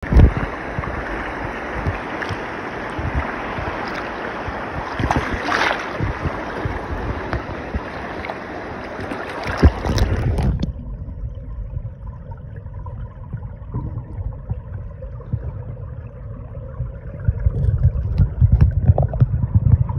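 Fast river current rushing and splashing right at the microphone at the water's surface. About halfway through, the high rushing sound cuts off as the microphone goes under water, leaving a muffled low rumble with dull knocks.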